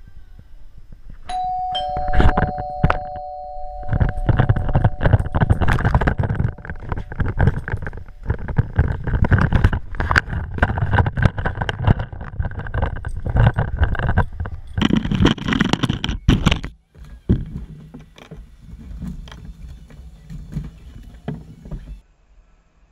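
A two-tone ding-dong doorbell rings about a second in. Then comes a long stretch of irregular knocking, scraping and rustling as a cardboard shipping carton is handled and opened, which becomes sparser and quieter after about 16 seconds.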